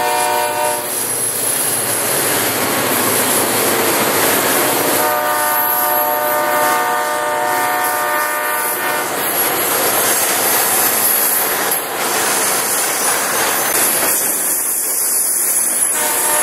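Diesel-hauled freight train of ethanol tank cars rolling past, with a steady noise of wheels on rail. The locomotive horn sounds briefly at the start, again for about four seconds from about five seconds in, and once more right at the end.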